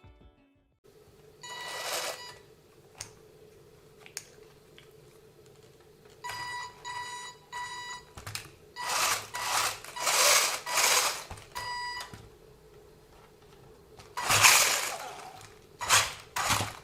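Short electronic beeps, some in a quick group of three, mixed with several louder bursts of rushing noise over a faint steady hum.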